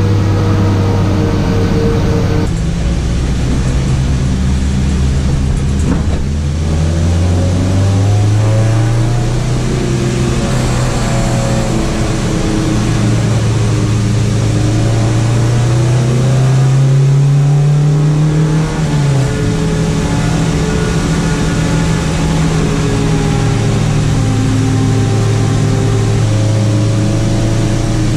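Honda Civic hatchback engine running under way: the engine note climbs slowly for about ten seconds, then the revs drop suddenly about two-thirds of the way in and it settles to a steady drone.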